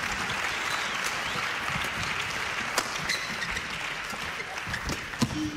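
Arena crowd applauding after a rally is won, dying down a little near the end, with a few sharp clicks over it.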